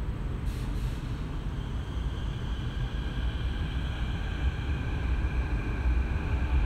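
Electric metro train pulling away: a steady low rumble with a short hiss of air about half a second in, then faint motor tones rising slowly in pitch as it accelerates.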